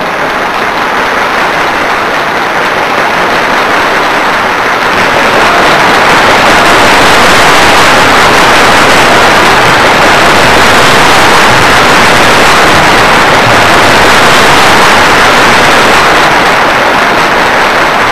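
Loud, even static-like noise with no distinct tones, swelling over the first few seconds and then holding steady.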